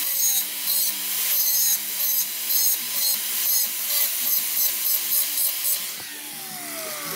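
Handheld angle grinder grinding the end of a short steel rod in quick repeated passes, about two or three a second. About six seconds in it is switched off and its motor whines down in pitch.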